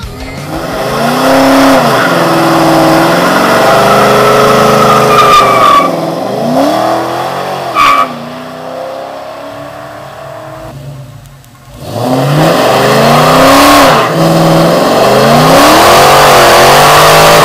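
2004 Pontiac GTO's LS1 V8, with long-tube headers and a Flowmaster cat-back exhaust, revving hard in repeated rises and falls. It drops away to near quiet for a moment about eleven seconds in, then revs loud again and holds as the rear tyres start to spin and squeal into a burnout near the end.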